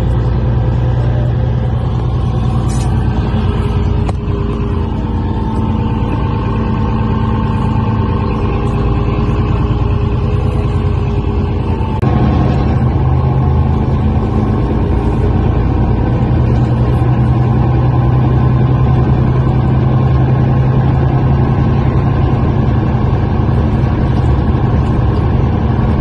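Engine drone and road rumble heard from inside a moving vehicle, steady with a few held humming tones. The sound changes abruptly about twelve seconds in.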